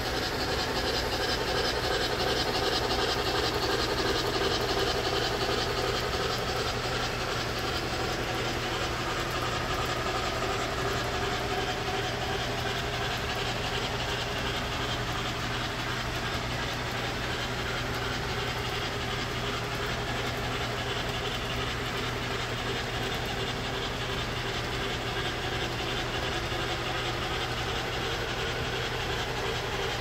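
Model train, a steam locomotive pulling streamlined passenger cars, running steadily along the track and across a bridge, with a steady low hum underneath.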